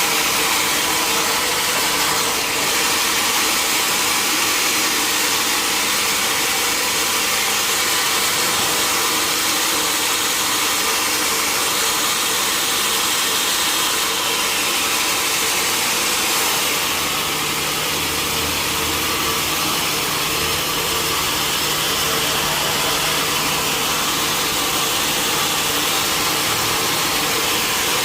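Sawmill machinery running with a loud, steady, hissing noise. A lower engine hum joins a little past the middle.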